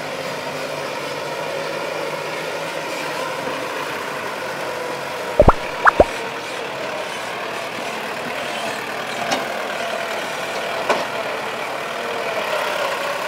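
Diesel engines of a dump truck and a Kubota tractor running steadily. Three sharp, loud thumps come close together about five and a half to six seconds in.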